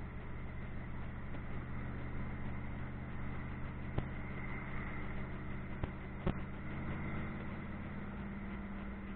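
Pontiac F-body's LT1 V8 engine running at a steady pitch, heard from inside the car. A few short, sharp knocks come through about four and six seconds in.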